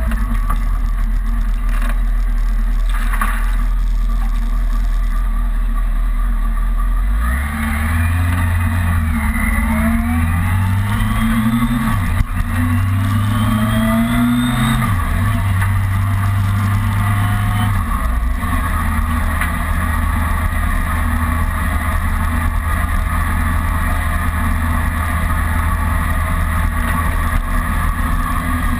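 Kawasaki ZRX motorcycle's inline-four engine under way, holding a steady note at first, then accelerating through the gears from about a quarter of the way in: several rising pulls with short breaks at the gear changes. After that it settles to a steady cruise.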